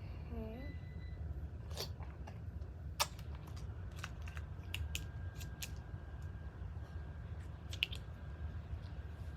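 Mouth sounds of someone eating a Ring Pop hard candy: scattered wet clicks and crunches, about a dozen, over a steady low hum.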